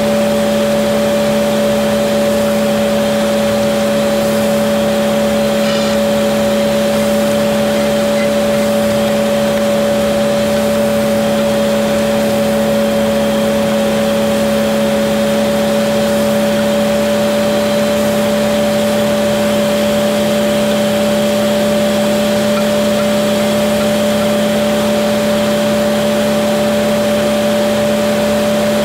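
Fendt tractor running at a steady engine speed while pulling a seed drill, a constant drone with a steady hum held at one pitch.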